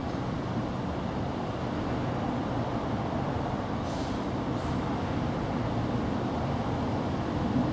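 Steady low rumbling background noise, with two brief faint hissy sounds about four seconds in.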